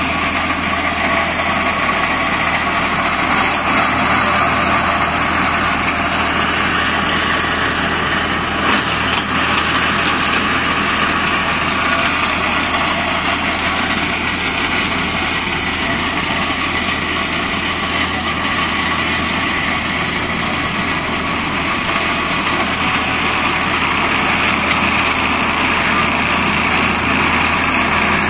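Deutz D4006 tractor's air-cooled three-cylinder diesel running steadily under load, driving a rear-mounted Agrieuro flail mulcher whose rotor spins as it mulches through undergrowth.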